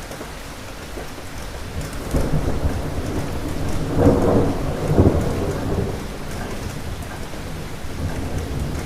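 Thunderstorm: steady rain with a roll of thunder that builds about two seconds in, peaks in two loud cracks around the middle, then rumbles away.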